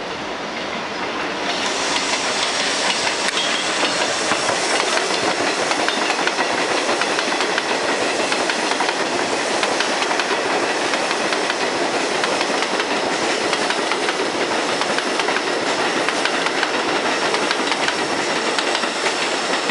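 R62A subway train on the 7 line running past on elevated track. Its wheels and rails make a steady rushing noise, with rapid clickety-clack over the rail joints. The noise swells to full loudness about a second and a half in and then holds.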